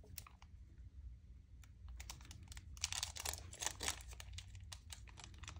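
Faint clicks and rustling of small craft pieces being handled on a work table, with a busier stretch of scratchy rustling about three seconds in.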